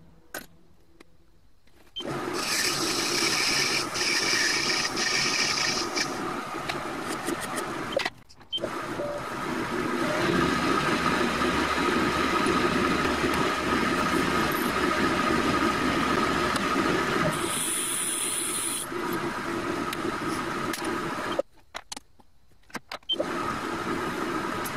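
TV-16 benchtop metal lathe running with a steady mechanical hum of motor and gears while a small brass part in its chuck is turned, drilled and filed. It falls quiet at the start, briefly about eight seconds in, and again for a couple of seconds near the end, with a short high-pitched sound about three-quarters of the way through.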